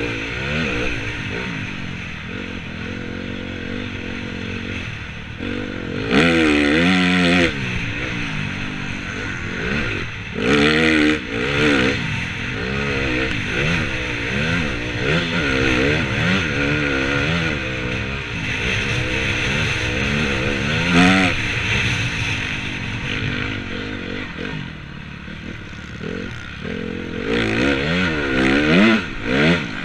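Motocross bike engine heard from on board, revving up and down continuously as the rider works the throttle and gears around a sand track, with several louder stretches of high revs.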